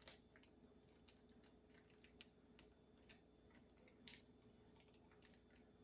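Faint, scattered clicks and crinkles of a plastic zip-top bag being handled as the air is pressed out of it, with the sharpest clicks just after the start and about four seconds in.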